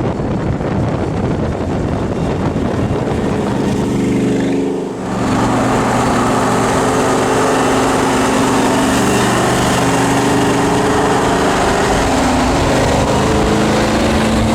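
A 1999 Ford SVT Lightning's 5.4-litre V8 with a Kenne Bell 2.3-litre twin-screw supercharger, running loud with a steady drone. The sound dips briefly about five seconds in, then holds at a high level to the end.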